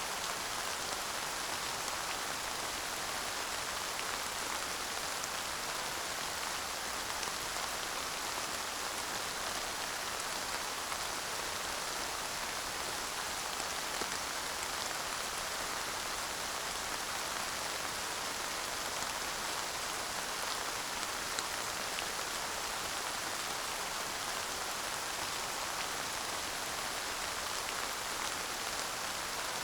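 Steady light rain falling, a dense even patter with scattered individual drop ticks and no thunder.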